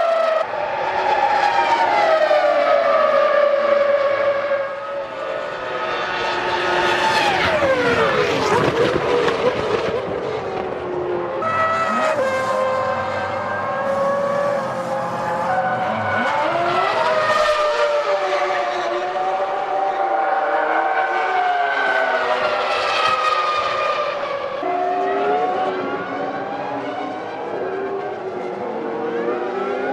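Formula One cars' 3.0-litre V10 engines running at high revs, the pitch climbing and dropping through gear changes. About eight seconds in, a car passes close with a sharp drop in pitch. The sound changes abruptly twice, about eleven and twenty-five seconds in.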